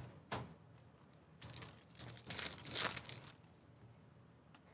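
Foil trading-card pack being torn open and crinkled by hand, in several short crackly bursts, the longest cluster around the middle.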